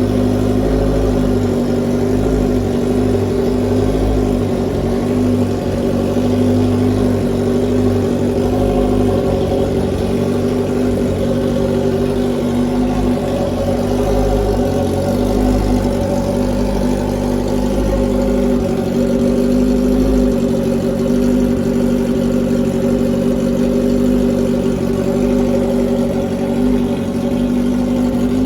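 Honda CB650F's 650cc four-stroke inline-four engine running loud through a straight-pipe full exhaust with no silencer, held at a steady engine speed.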